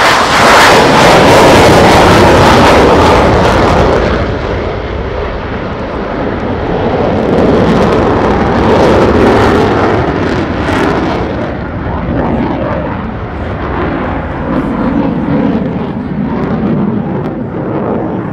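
F-16's General Electric F110-GE-129 turbofan running in afterburner on its takeoff and pull-up: loud jet noise as it passes close over the first few seconds, then lower, duller and wavering as the jet climbs away.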